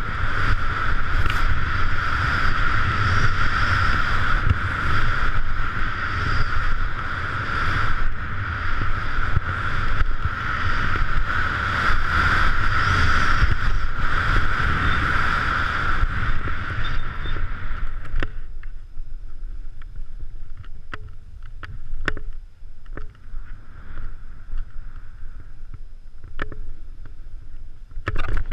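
Skis carving through powder snow and the wind of the descent buffeting an action camera's microphone, making a loud, steady rush with a low rumble. About eighteen seconds in it drops to a quieter hiss with scattered clicks and knocks.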